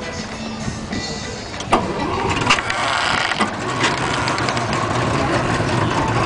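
Motorboat engine running, getting louder about two seconds in, with a few sharp knocks in the first half.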